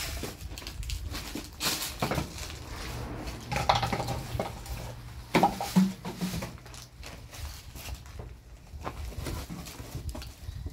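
Plastic bottles, bags and cardboard packaging rustling and clattering as they are picked out of a rubbish pile by hand and dropped into a woven plastic sack, with irregular knocks and crinkles, the loudest about four and five and a half seconds in.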